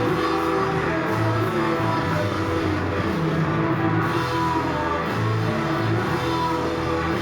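Rock band playing an instrumental stretch: electric guitar over bass notes and a drum kit, steady and loud throughout.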